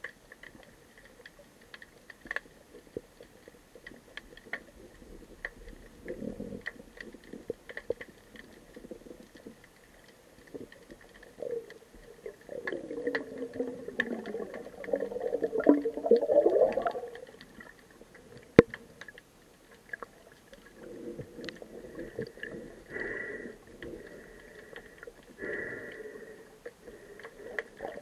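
Underwater sound heard by a submerged camera: scattered sharp clicks and crackles, with a few stretches of low bubbling gurgles, the longest and loudest through the middle.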